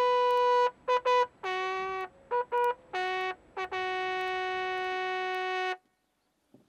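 Military bugle call: a run of separate brass notes, some short and some held, ending on a long low note that cuts off about six seconds in.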